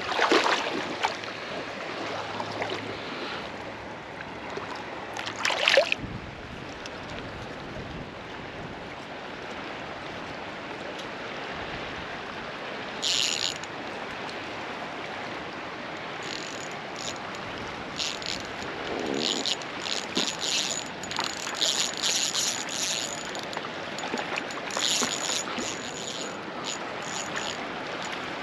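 Steady rush of a flowing spring-fed stream. There are a couple of loud knocks in the first six seconds and frequent short crisp ticks through the second half.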